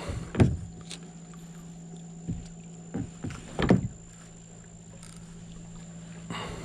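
A few short dull knocks over a steady low hum.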